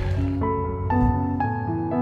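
Gentle, slow background music, sustained notes entering about every half second.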